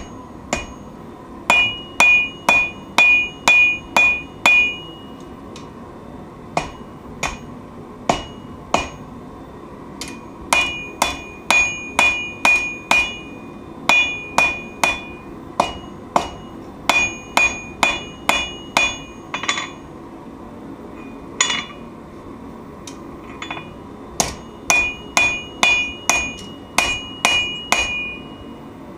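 Hand hammer striking steel on an anvil in runs of about two blows a second, with short pauses between runs. Many blows leave a high, clear anvil ring; a few are duller thuds.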